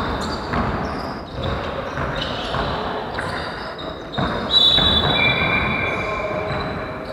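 Basketball bouncing on a parquet gym floor during play, a few separate thuds, with sneakers squeaking on the floor about halfway through.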